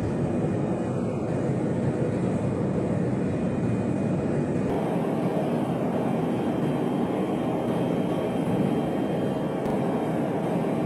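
Aircraft engines running steadily with a loud, even roar; the sound changes abruptly about five seconds in.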